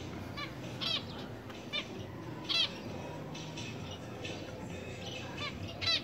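Zebra finch giving short, sharp calls, about six at uneven intervals, the loudest about two and a half seconds in and just before the end.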